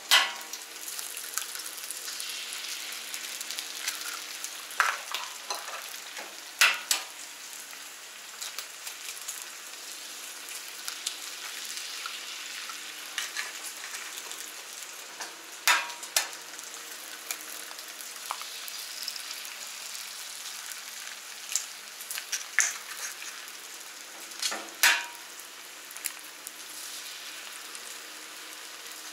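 Bacon, potatoes and eggs frying on a Camp Chef FTG600 flat top griddle: a steady sizzle, with sharp taps now and then as eggs are cracked and laid on the hot steel.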